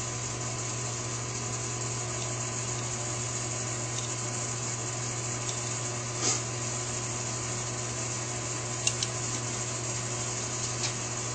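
Steady low hum with a hiss over it, with a few faint, light clicks in the second half as small screws are handled and started into a carburetor's diaphragm cover.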